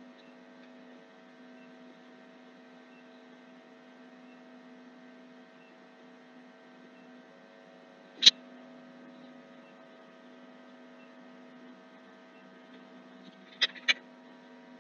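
Steady faint electrical mains hum, with one sharp computer-mouse click about eight seconds in and a quick pair of clicks near the end.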